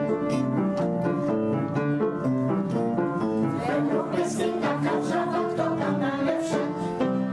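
Music from a vocal ensemble: an instrumental accompaniment of steady held notes, with the singers' voices coming in about halfway through.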